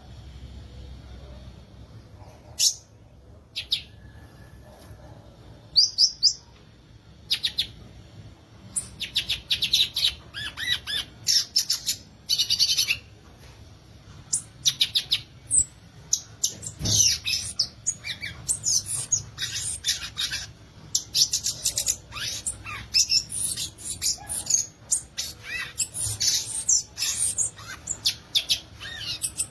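Violaceous euphonia singing: a few separate high notes at first, then, from about eight seconds in, a fast run of twittering, chattering phrases that keeps going. A single low knock sounds about halfway through.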